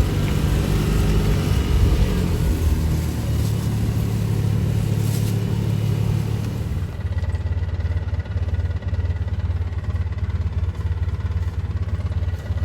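Small off-road vehicle engine running while driving; about seven seconds in the engine note drops and settles into steadier, lower running.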